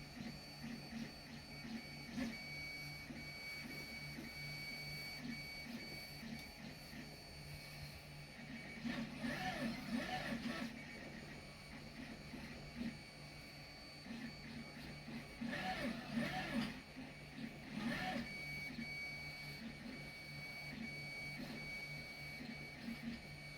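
Wanhao i3 3D printer running a print, its stepper motors whining in quick rising and falling tones as the print head moves, over a steady low hum and a faint steady high whine. The motor sounds grow louder in a few stretches, around a third of the way in and again about two-thirds through.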